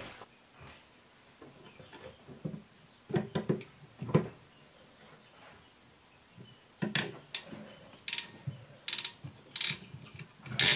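Hand PEX crimping tool being worked onto a brass fitting on PEX tubing: scattered handling knocks, then a cluster of sharp metal clicks and short ratcheting rasps in the last few seconds.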